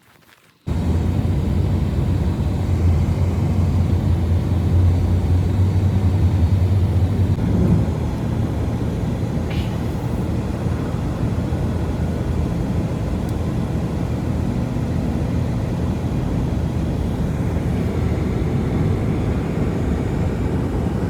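Strong blizzard wind, a steady low rumbling rush that cuts in suddenly about a second in and holds without letting up.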